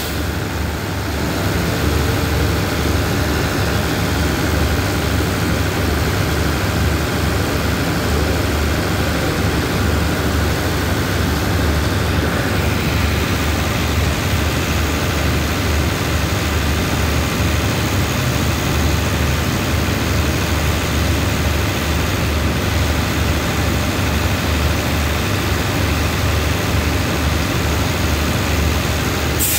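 A standing diesel passenger train's engines run steadily at idle, giving a loud, unchanging low hum.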